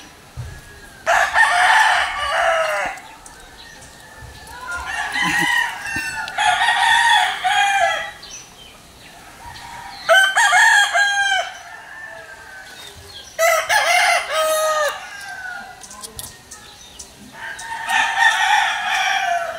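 Several roosters crowing in turn, about five long crows a few seconds apart, two of them running back to back near the middle.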